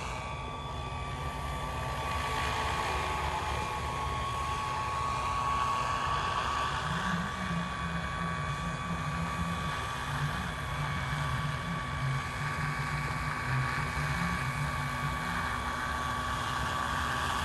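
Scale model radio-controlled helicopter in flight: a steady high whine from its drive over the low sound of its rotors.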